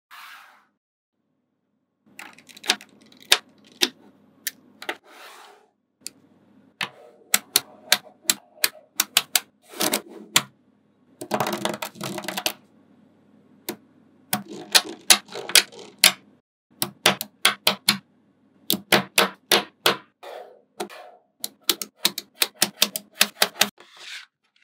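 Small neodymium magnet balls clicking sharply as they snap together, in irregular runs of quick clicks separated by short pauses, with a denser rattle around the middle. The clicks begin about two seconds in.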